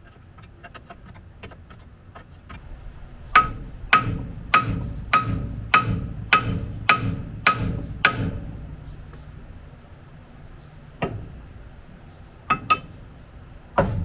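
Hammer blows on steel steering-linkage parts while they are being knocked loose: a few light taps, then a steady run of about eight hard, ringing strikes at about two a second, then a few single blows.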